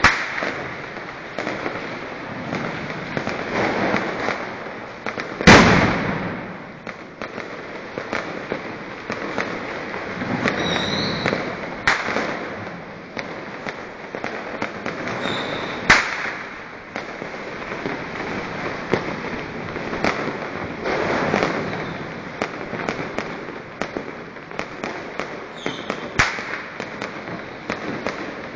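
Fireworks and firecrackers going off nonstop: a constant crackle of many small bangs, with one very loud blast about five seconds in and a few sharp single cracks later.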